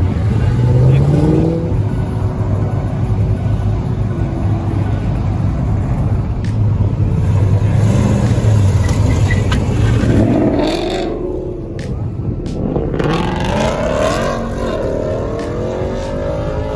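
Car engines running with a steady low rumble, revving with the pitch rising and falling about ten seconds in, and again from about thirteen seconds on.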